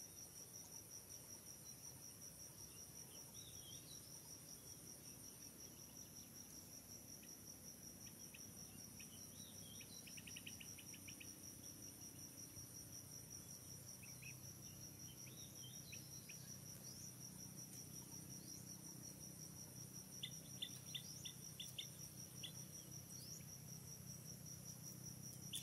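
Faint, steady high-pitched trilling of insects, crickets or similar, with a few short chirps scattered through and two quick runs of clicks, one about ten seconds in and one near twenty seconds.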